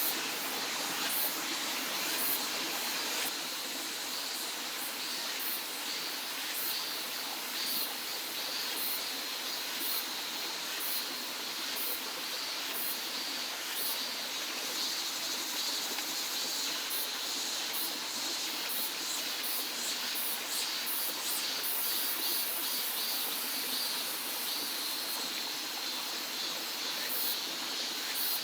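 Steady rush of a mountain stream, with faint high-pitched ticks repeating over it.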